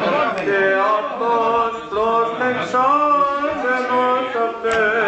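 Men's voices singing a chant, holding long notes that bend and waver.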